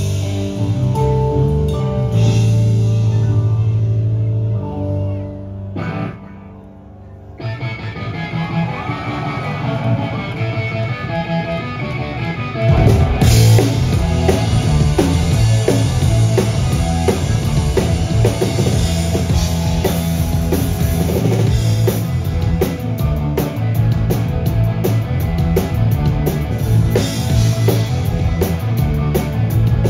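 Live punk rock band with drum kit, electric guitar and bass playing loud through a stage PA: held chords at first, a brief drop-out about six seconds in, a build, then the full band crashes back in with hard, driving drumming about thirteen seconds in.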